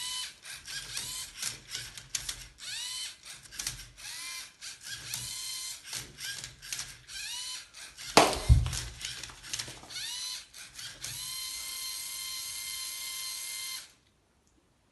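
LEGO Mindstorms EV3 Rubik's-cube-solving robot at work: its electric motors whine up and down in quick short spins as the cube is turned and flipped, with clicking and rattling of plastic gears and the cube, and one loud clack about eight seconds in. Near the end a steady motor whine runs for about three seconds and then cuts off suddenly.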